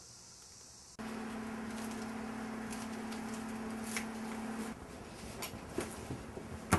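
Faint insect chirring at first. About a second in it cuts to quiet room tone with a steady low hum, which drops away shortly before the last two seconds, leaving a few small clicks and one sharper click near the end.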